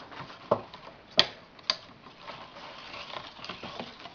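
Batter being stirred in a mixing bowl: a utensil scraping and clicking against the bowl, with three sharper knocks in the first two seconds.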